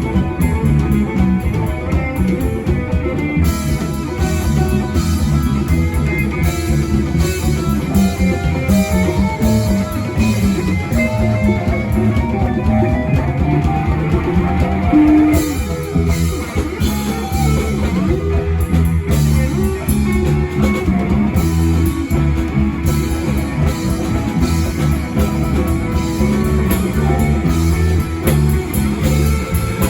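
Live rock band playing an instrumental passage: guitar lines over a steady drum kit and low end.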